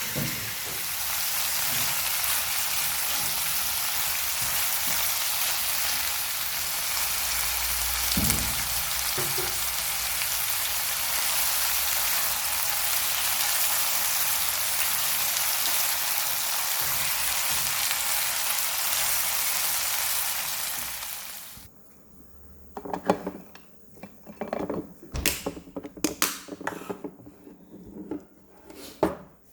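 Food frying in a pan with a steady, loud sizzle that cuts off abruptly about 22 seconds in, followed by scattered clinks and knocks of kitchen utensils and cookware.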